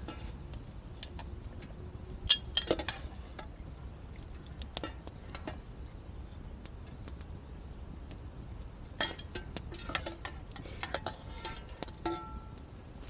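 Metal cookware clinking as boiled dumplings are scooped from the pot into a bowl: two sharp ringing clinks about two seconds in, then a run of lighter clinks and taps from about nine seconds on.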